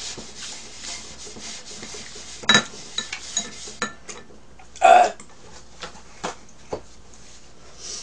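Paper towel rubbing across an electric griddle plate, with small clicks and clinks of dishes and utensils. A sharp metallic clink comes about two and a half seconds in, and a louder short noise about five seconds in.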